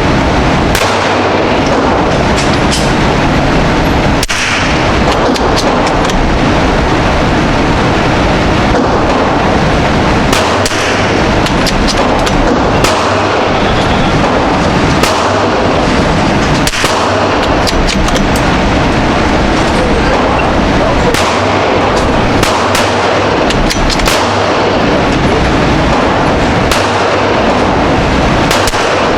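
Gunshots at a shooting range: a dozen or more single sharp shots at irregular intervals, the strongest about 4 and 17 seconds in, over a loud steady rushing noise.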